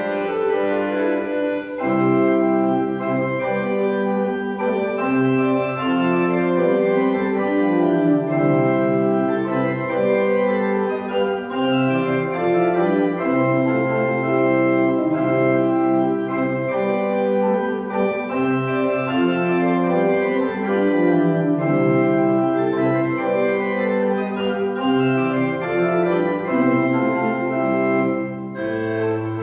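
Church organ playing a postlude: held chords that change every second or so, with a melody moving above them.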